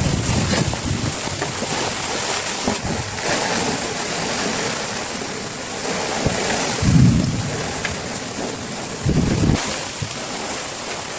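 Heavy rain falling as a steady dense hiss, with strong wind. Gusts buffet the microphone in short low bursts about two-thirds of the way through and again near the end.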